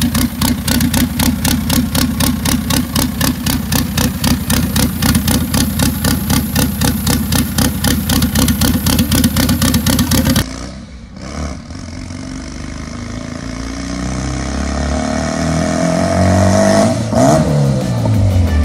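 Turbocharged Honda DOHC VTEC four-cylinder running loudly with a rapid, choppy pulse. About ten seconds in, it cuts to a second recording where the revs climb steadily for several seconds, peak and then drop away.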